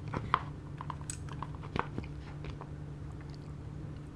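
Eating sounds: a spoon clicking and scraping against a plastic rice bowl of chirashi don as rice and sashimi are scooped, with quiet chewing. The sharpest clicks fall in the first two seconds, the loudest near the start, and fainter taps follow.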